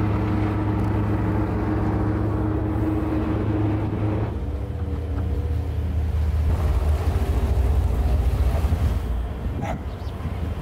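Large motor yacht's engines running with a steady drone as it cruises at low speed, with wind on the microphone. The tone of the drone shifts about four seconds in.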